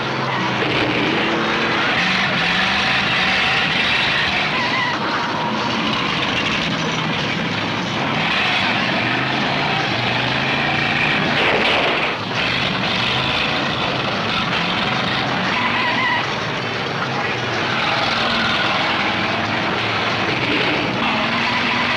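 Many car engines running and revving together in a demolition derby, a dense steady roar with pitches shifting up and down, heard on an old film soundtrack that cuts off the highest sounds.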